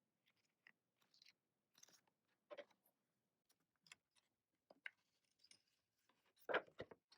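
Faint, scattered rustles and taps of album packaging, paper inserts and photo cards being handled, with a louder rustle about six and a half seconds in.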